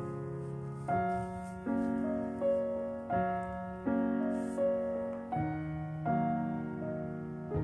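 Slow background piano music: a simple melody over held chords, a new note struck about every three-quarters of a second, each fading after it sounds.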